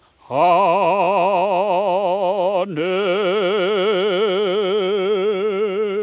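A solo voice singing the last long notes of a hymn with heavy vibrato. After a brief breath it scoops up into a held note, moves to a second held note about two and a half seconds later, and holds that to the end.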